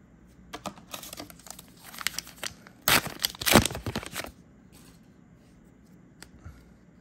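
A trading-card booster pack's foil wrapper being torn open and crinkled, loudest about three to four seconds in, then falling quiet.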